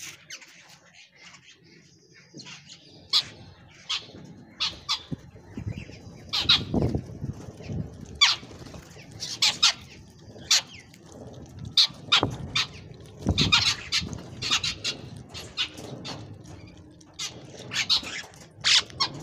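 A flock of bank mynas calling while feeding: many short, sharp squawking calls, one after another at irregular intervals.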